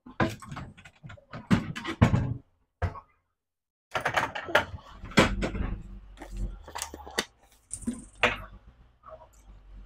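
Kitchen cupboard door opening and closing, with a run of sharp knocks and clatter as dishes and glasses are moved about on the shelf, then more handling clatter with a low rumble from about four seconds in.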